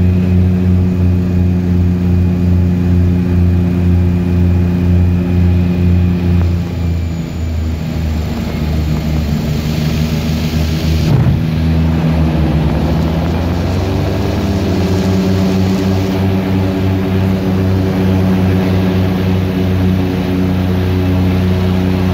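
Propeller aircraft's engine and propeller heard from inside the cabin through landing: a steady drone, then a rush of noise and a jolt about 11 seconds in as the wheels touch down. The engine note shifts in pitch a few seconds later as the plane slows on the runway.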